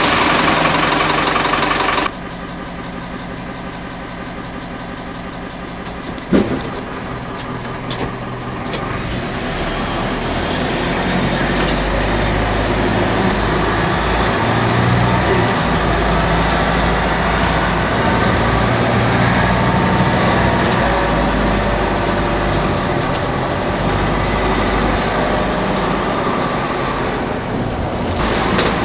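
Bus engine and body heard from inside the passenger cabin. It is loud at first and drops suddenly about two seconds in, then a sharp knock comes about six seconds in. From about ten seconds the engine grows louder into a steady low rumble as the bus drives on.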